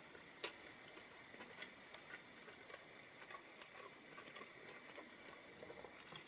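Near silence with faint, irregular clicks of a person chewing a bite of fried chicken pakora, one sharper click about half a second in.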